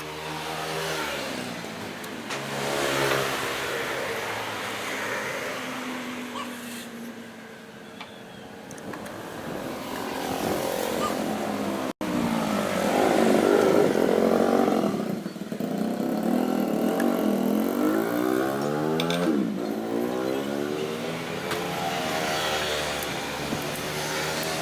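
Old Standard sewing machine running, its speed rising and falling in spells, with an abrupt break about halfway through.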